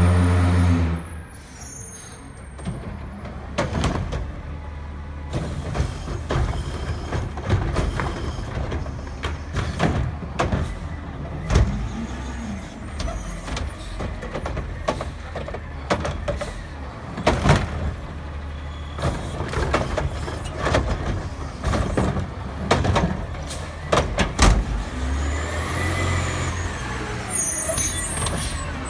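Diesel engine of a front-loading garbage truck running as it pulls up to the curb, loud at first, with repeated clanks and bangs from its lift arm and carry can. Near the end the engine revs up as the hydraulic arm lifts a cart.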